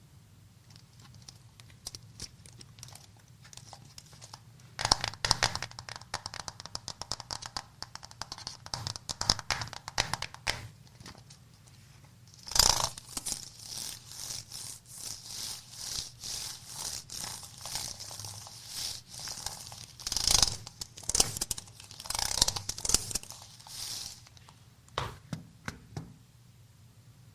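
Hands working an Apple Magic Keyboard and its packaging, making dense runs of quick clicks with rustling and scraping, plus a couple of sharper knocks about 12 and 20 seconds in.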